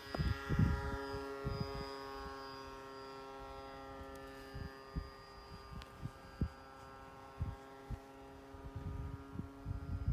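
Electric motor and propeller of an RC Bushwhacker plane on skis, running at a steady hum as it takes off from snow and climbs away, the higher part of the tone fading over the first few seconds. Irregular low thumps on the microphone come through it.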